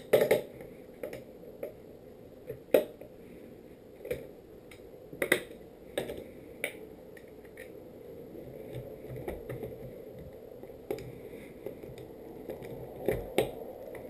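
Skate tool and metal truck hardware clicking and knocking irregularly as the nuts and bolts holding a skateboard's trucks and wheels are turned, with a few louder clacks among many small ticks.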